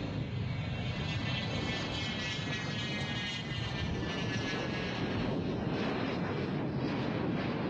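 Fixed-wing aircraft's engines running with a steady noise, and a high whine over the first half.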